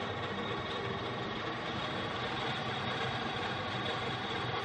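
Metal lathe running steadily, turning down a metal bar held between the chuck and a tailstock live centre.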